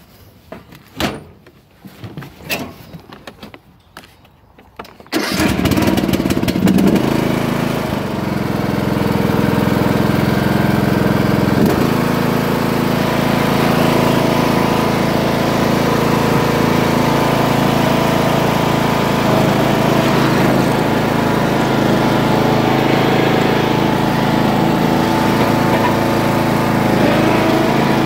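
A few clicks and knocks, then about five seconds in the riding mower's replacement 17.5 hp Briggs & Stratton engine starts at once and runs steadily and loudly, with a slight change in its note around twelve seconds in.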